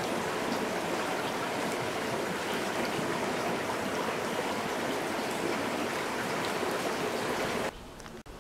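Shallow creek water running over rocks, a steady rushing trickle that cuts off suddenly near the end.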